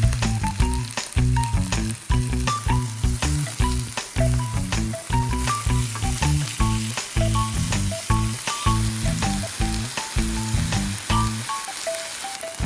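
Food sizzling as it fries in oil in a pan, with background music over it: a bass line and a simple melody to a steady beat. The music drops out near the end, leaving the sizzle.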